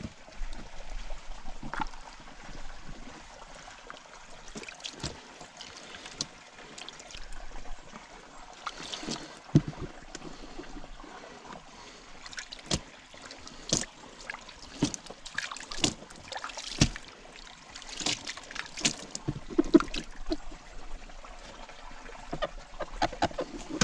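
Gold pan being worked in water: water sloshing and trickling, with gravel and small stones clicking and scraping against the pan in irregular sharp taps.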